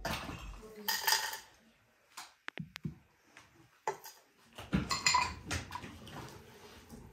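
Glass teapot and its lid clinking and knocking on a metal tray while dried tea herbs are put into the pot: a few sharp clicks near the middle, with rustling handling noise about a second in and again about five seconds in.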